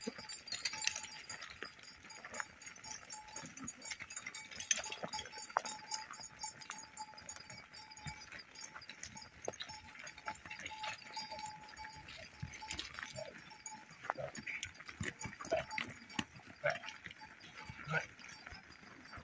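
A herd of goats and sheep moving about, with bells clinking and a few short bleats.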